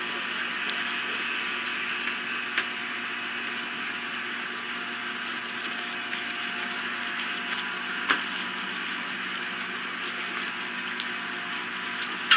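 Steady outdoor rushing noise on the nest camera's open microphone, with a couple of faint sharp clicks, the louder one about eight seconds in.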